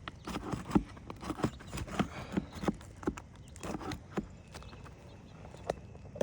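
Irregular knocks and taps on an asphalt shingle roof during shingle repair work, two or three a second and uneven in strength.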